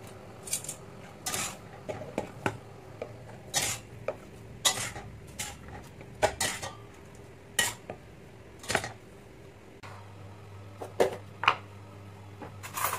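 Cookware clattering: a stainless steel pot and a plastic colander knocked and handled as boiled spaghetti is drained and moved, giving about a dozen sharp clinks and knocks at irregular intervals.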